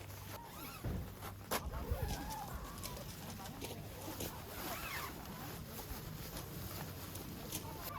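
Birds calling in short arching calls, with a few sharp clicks or knocks, the strongest about one and a half seconds in, over a low steady hum.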